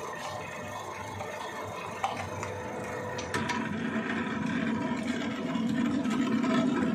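A few sharp metal clicks as a motorcycle cylinder is set up on a cylinder boring machine, then a steady machine hum that starts about three and a half seconds in and grows slowly louder.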